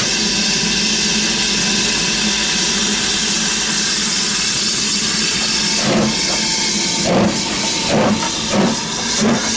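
BR Standard Class 9F 2-10-0 steam locomotive starting away: a steady loud hiss of steam, then, from about six seconds in, the first slow exhaust chuffs, coming quicker as it gets under way, with no wheel slip.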